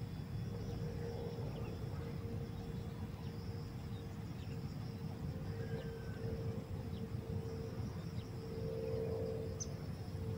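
Insects chirring steadily, with a steady hum and a low rumble beneath; the hum swells a little near the end.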